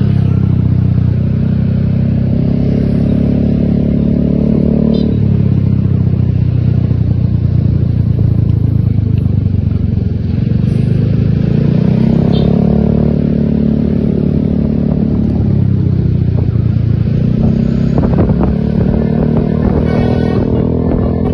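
A bus running close by: a loud, continuous pitched drone that holds steady and then shifts to a new pitch every few seconds.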